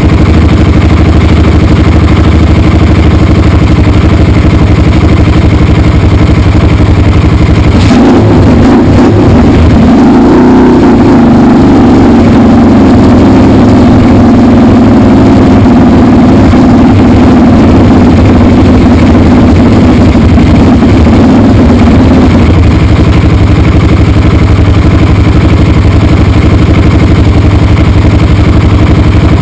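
Irbis TTR 250R's single-cylinder four-stroke engine running loud and steady just after a cold start, throttle untouched. About eight seconds in its note changes and runs fuller for some fourteen seconds, then settles back to the plainer idle.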